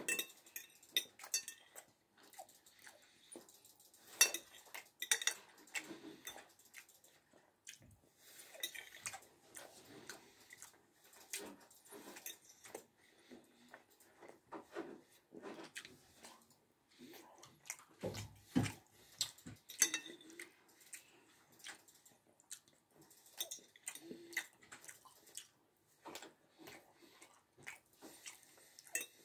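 Metal cutlery clinking and scraping against a glass bowl in scattered short clicks while pasta is scooped up and eaten, with chewing between. A dull low bump about two-thirds of the way through.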